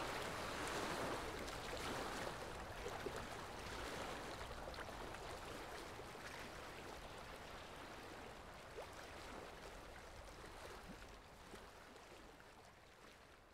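Steady rushing noise like running water, fading out gradually.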